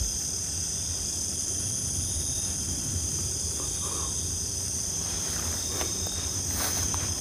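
Steady chorus of night insects, a continuous high-pitched trilling, with a low rumble underneath.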